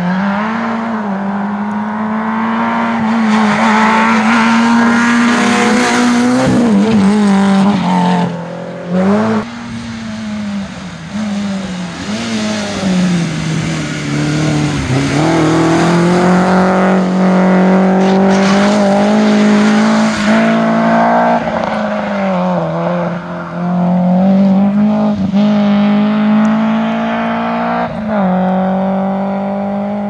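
Small rally hatchback engines, among them a Peugeot 106, driven hard on a gravel stage. The engine note climbs and drops sharply again and again as the driver works through the gears and lifts for corners, with bursts of tyre and gravel noise.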